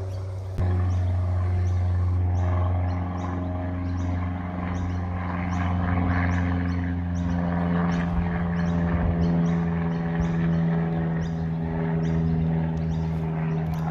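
A steady low motor hum that starts abruptly under a second in and runs evenly. Short high chirps repeat about one and a half times a second above it.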